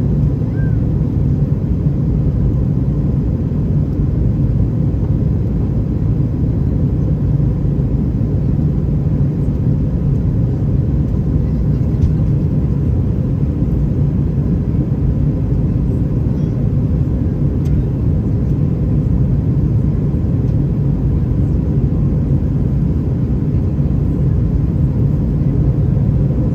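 Steady low rumble of an Airbus A320-212 in flight, heard from inside the cabin: engine and airflow noise with a faint steady hum above it.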